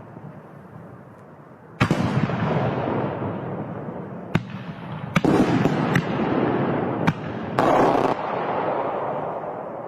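Fireworks going off: after a quieter opening, a string of sharp bangs starting about two seconds in, each followed by a long crackling rush, with the loudest bursts around the middle.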